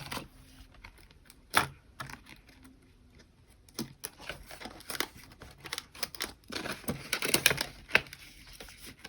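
Paper bills and cash envelopes being handled: rustling and crinkling with scattered sharp clicks and taps, one loud click about a second and a half in and a denser flurry of rustling near the end.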